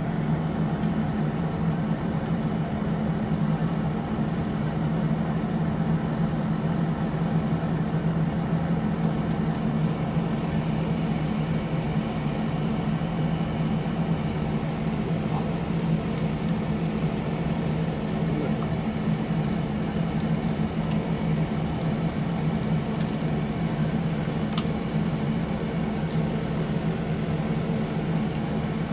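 Salmon fillet sizzling steadily in a hot frying pan on an electric stove, over a constant low hum.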